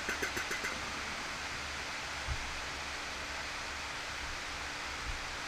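Steady hiss of microphone noise and room tone, with a short run of faint, rapid ticks in the first second.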